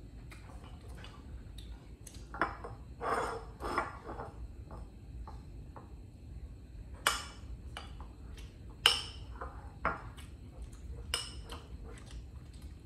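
Tableware clinking and knocking: a spoon or utensils against a bowl or plate, in scattered short strikes with a handful of louder ones spread through.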